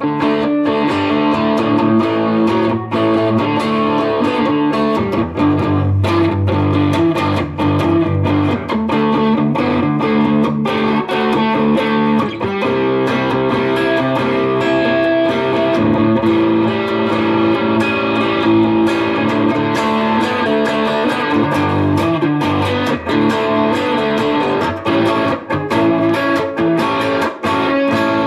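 Electric guitar, a Fender Stratocaster, played through a Fender Mustang GTX100 modelling amp on its 'Baby Blues' preset: a continuous run of picked notes and chords.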